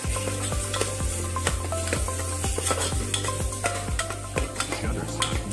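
A thick masala paste sizzling as it fries in hot oil in a pressure cooker, stirred with a spoon that clicks and scrapes against the pot about two to three times a second. A steady low hum runs underneath.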